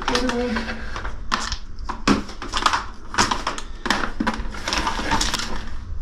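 Handling noise: irregular clicks, scrapes and rustles as a refrigerator's power cord is moved about on the fridge's top.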